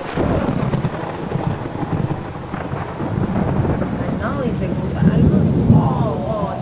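Thunderstorm: rain falling steadily under a rolling rumble of thunder that swells to its loudest about five to six seconds in.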